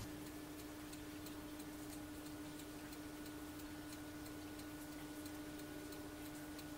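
Faint, evenly spaced ticking, several ticks a second, over a steady low hum.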